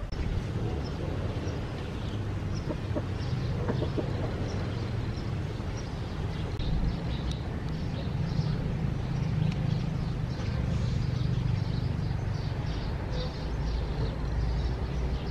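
Domestic chickens clucking with many short scattered calls over a steady low rumble.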